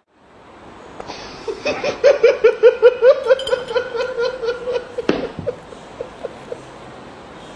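A single voice laughing in a fast run of "ha-ha-ha" pulses for about three seconds, then trailing off into a few separate chuckles.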